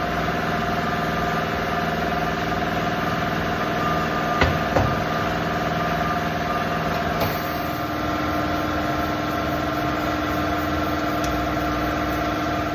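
A motor or engine running with a steady hum, with a couple of sharp clicks about four and a half seconds in.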